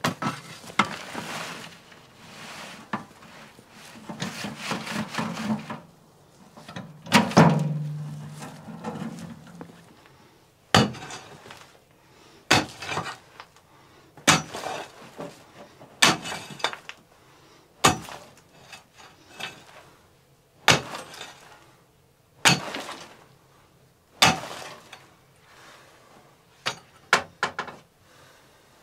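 A pick striking the packed, stony earth of a cabin floor: eight sharp blows in a regular rhythm, about one every two seconds, in the middle of the stretch, with a few lighter knocks near the end. Before the blows there is scraping and one loud clatter about seven seconds in.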